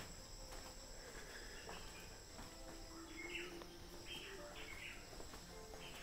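Faint, steady high-pitched trilling of night insects, with several short chirps from small animals in the second half.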